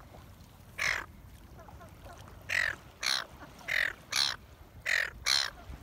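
Harsh bird calls: seven short calls, most of them in pairs about half a second apart.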